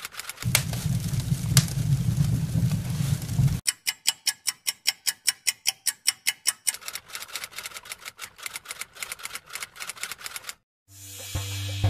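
Typewriter key clicks in quick, even runs, at about six clicks a second at their clearest. A low hum sits under the clicks for the first three seconds.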